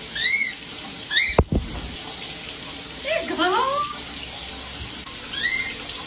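Shower water running steadily while a cockatiel gives short arched chirps, three times, with a quicker run of lower calls partway through. A single sharp knock sounds about a second and a half in.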